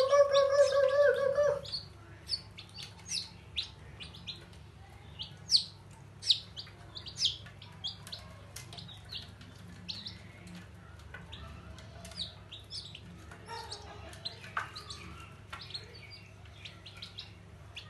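Baby chicks peeping: short, high, separate peeps scattered throughout, some louder than others. A loud, held call with a slight waver covers the first second and a half.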